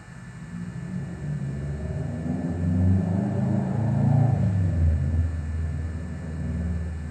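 Low rumble of a passing vehicle, swelling to its loudest about three to four seconds in, then fading.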